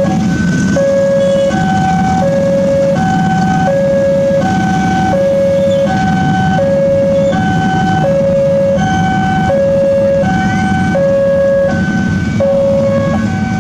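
Railway level-crossing warning alarm sounding a repeating two-tone hi-lo signal, the pitch switching about every three-quarters of a second, which warns that a train is approaching and the barrier is down. Idling motorbike and traffic engines run underneath.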